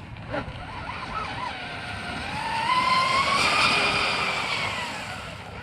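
Twin brushless electric motors of a TFL Zonda RC boat whining at full speed, each running on 6S. The pitch climbs and the sound swells to its loudest about three and a half seconds in, then fades away.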